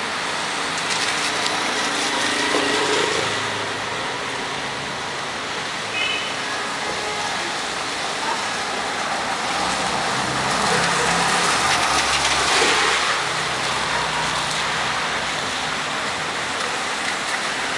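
Steady rain falling on a wet street, with cars and a motorcycle driving past, their tyres hissing through the water on the road; the loudest pass swells about ten to thirteen seconds in.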